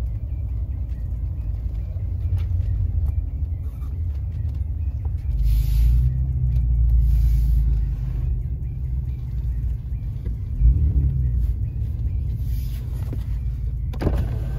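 Low, steady rumble of a vehicle's engine and road noise heard from inside the cab as it rolls slowly, swelling louder for a few seconds in the middle, with a short knock and then a sharper knock near the end.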